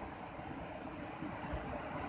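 Ocean surf: a steady hiss of waves washing on the shore, with a low rumble that swells about three-quarters of the way in.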